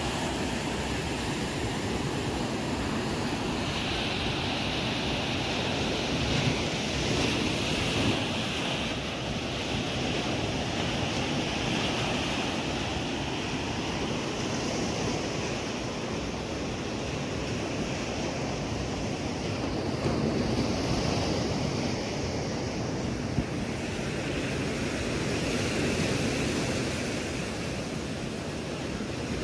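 Ocean surf washing onto a sandy beach: a steady rush of breaking waves that swells and eases.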